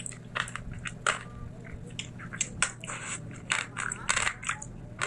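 Close-miked biting and crunching of food: a run of sharp, irregular crisp crunches, the loudest about a second in and again a little past the middle.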